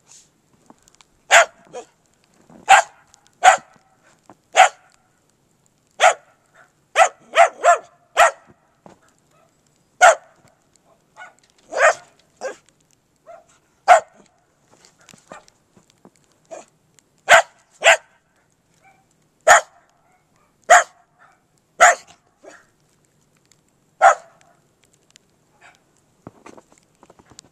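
Small dog barking in short, sharp single barks, about eighteen of them at uneven intervals, sometimes two or three in quick succession.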